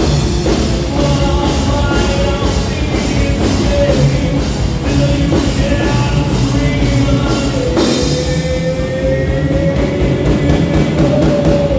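Live rock band playing loud: distorted electric guitar, bass guitar and drum kit keeping a steady beat. In the last few seconds the low end thins and one long held note rings out, slowly rising in pitch.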